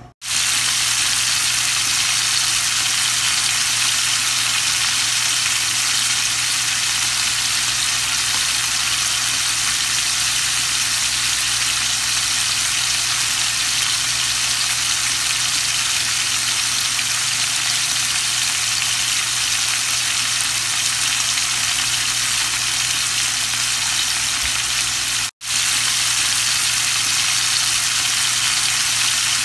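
Several whole butterfish sizzling steadily in hot cooking oil in a frying pan. The sizzle breaks off for a moment about 25 seconds in, then resumes as before.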